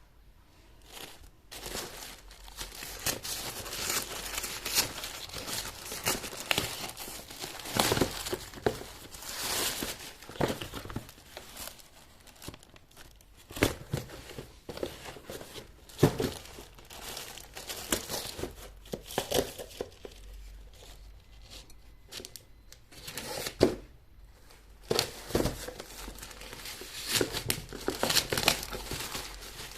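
Plastic packaging crinkling and tearing as it is handled and opened by hand. It comes in irregular rustling bursts that begin about a second in, with a quieter patch past the middle.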